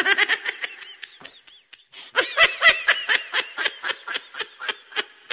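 High-pitched giggling laughter, a rapid chain of short laughs at about six a second: a brief run at the start, a pause, then a longer run from about two seconds in.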